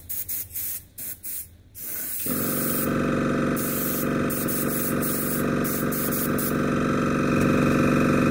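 Paasche H single-action airbrush spraying weathering paint: a few short spurts of hissing air in the first two seconds, then a continuous spray. About two seconds in, a steady droning hum sets in beneath the hiss and runs on.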